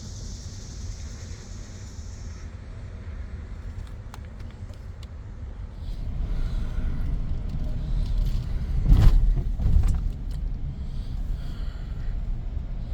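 A car running with a low rumble that grows louder about six seconds in, with two loud bumps about a second apart near the middle.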